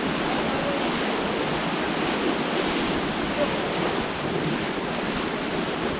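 Fast-flowing river water rushing steadily, a loud, even rush with no breaks.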